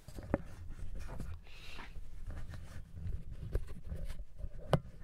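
Handling noise from a handheld camera being moved about: low rubbing and rustling, with a brief scratchy rustle about a second and a half in. A sharp click comes about a third of a second in and another near the end.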